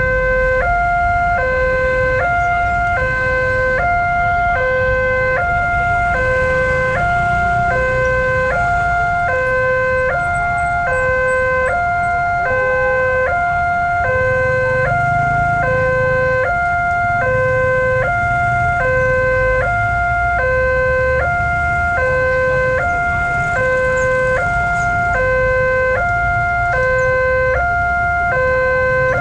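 Electronic railway level-crossing alarm sounding continuously: a lower and a higher tone alternate evenly, each held a little under a second, over the low rumble of road traffic waiting at the crossing.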